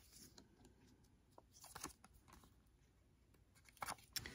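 Near silence, with a couple of faint small ticks about two seconds in and a few more near the end: a metal-tipped nail pick tool scraping and tapping as it tries to lift a tiny nail decal.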